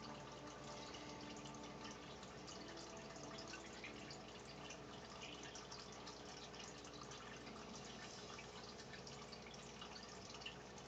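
Faint trickling and dripping of aquarium water, many small irregular drips, over a low steady hum.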